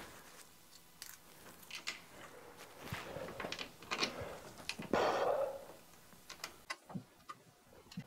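Scattered small clicks and rustles of hands handling wiring and pushing cable connectors onto a starter motor's terminals, with a longer rustle about five seconds in.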